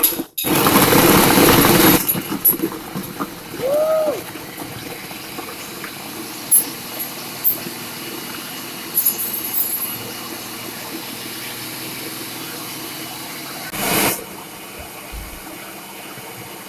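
Oster food processor pulsing frozen bananas with peanut butter and coconut cream into a thick banana ice cream. It runs loudly for about two seconds at the start, then goes on more quietly and steadily, with a few sharp knocks and another short loud burst near the end.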